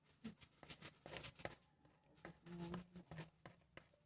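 Faint, scattered clicks and rustles of hands winding thread and feathers onto a small fishing lure.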